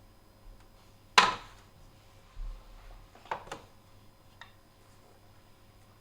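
A few sharp knocks and clicks of containers and other items being set down and handled in a fridge: one loud knock about a second in, two lighter clicks a little after three seconds, and a faint tick later.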